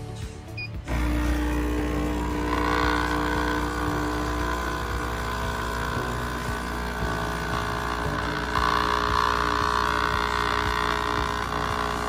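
B Coffee Co. capsule coffee machine brewing: its pump starts about a second in, just after the brew button is pressed, and runs with a steady hum while coffee pours into the cup.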